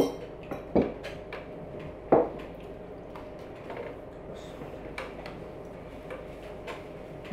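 Cutlery and plates clinking during a meal: three sharp knocks in the first couple of seconds, then fainter scattered ticks over a faint steady hum.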